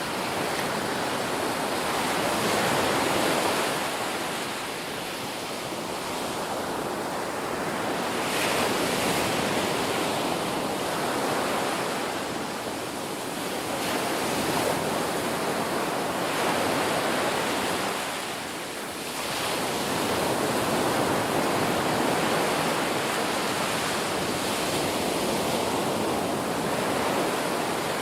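Ocean waves breaking and washing on a shore: a continuous rush of surf that swells and eases with each wave, every four to six seconds.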